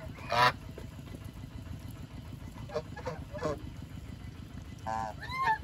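Domestic geese honking: one loud call just after the start, a few shorter calls about halfway, and another call near the end, over a low steady rumble.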